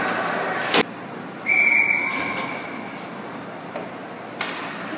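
A sharp knock, then a single blast of a hockey referee's whistle, one steady high note held for under a second and fading, stopping play for a faceoff.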